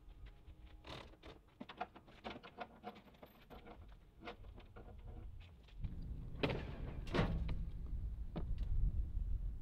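Irregular metal clinks, knocks and rattles from hands working at a loaded car trailer. About six seconds in, a steady low rumble comes in under a couple of longer scrapes.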